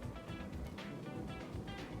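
Quiet background music with plucked guitar-like notes, about two notes a second.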